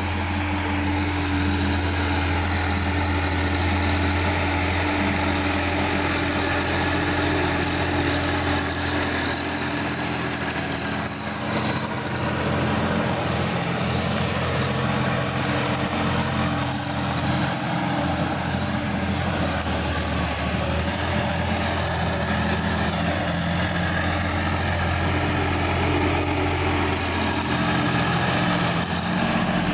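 Sonalika DI-50 RX tractor's diesel engine running steadily while it pulls a rotary tiller through the soil. The engine note holds at one even pitch, with the tiller's churning noise spread above it.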